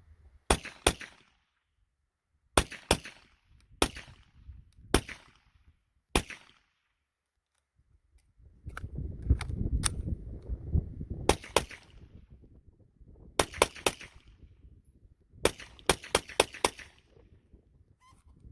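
Suppressed 9mm pistol shots from a Glock 48 with a Rebel Silencers DFNDR9 suppressor, shortened by two baffles, firing Winchester 147-grain subsonic rounds. There are about twenty sharp shots, in singles and quick pairs, with a rapid string of five or six near the end. A low rumble runs through the middle.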